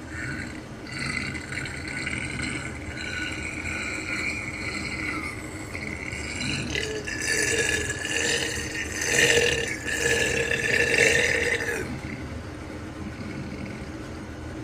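A person burping: drawn-out, noisy burps, loudest in a stretch from about halfway through to near the end.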